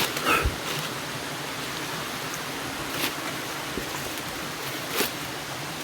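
Steady rush of river water near a waterfall, with a few brief sharp sounds at the start, about three seconds in and about five seconds in.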